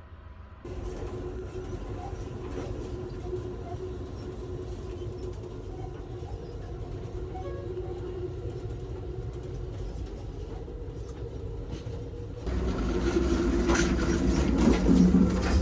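Amtrak Coast Starlight passenger train running, heard from inside the car: a steady rumble with a low hum. The rumble grows louder, with added rattling, about twelve seconds in.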